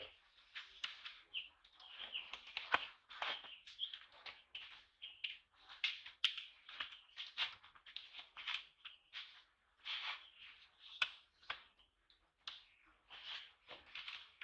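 High-pitched chirping calls, short and irregular, several a second, with a few sharper clicks among them.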